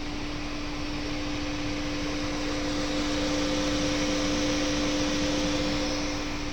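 Steady mechanical hum with a hiss and a constant low tone, growing a little louder about three seconds in and easing off near the end.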